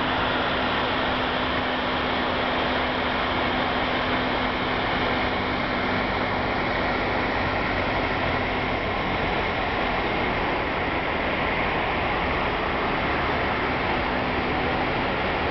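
Water of a large fountain pouring and splashing from its raised basin into the pool below, a steady, even rush. A faint low hum runs under it for the first half and comes back near the end.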